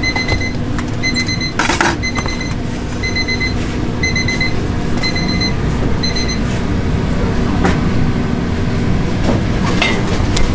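An electronic alarm beeping in quick groups of about four high beeps, one group a second, stopping about six and a half seconds in, over a steady low rumble. A single sharp knock comes near the two-second mark.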